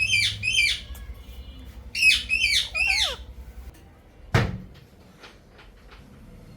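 Indian ringneck parrot giving harsh squawks: a quick run of three sharp, falling calls at the start, and another run of three about two seconds in. A single sharp knock follows about four seconds in.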